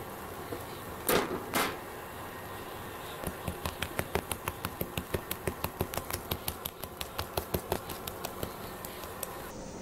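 A hand beating thick besan batter in a steel bowl: two heavier slaps about a second in, then a quick, even run of wet slaps, about five a second, from about three seconds in until near the end.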